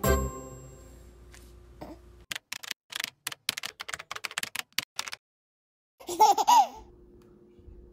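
Background music rings out, then comes a quick run of light clicking taps lasting about three seconds. After a short pause there is a brief squeal from a baby, its pitch bending up and down.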